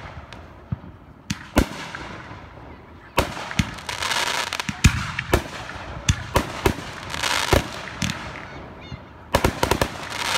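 Aerial firework shells bursting overhead: a single sharp bang about a second and a half in, then a rapid run of bangs from about three seconds in, and another cluster near the end, with a rushing, crackling noise between the bangs.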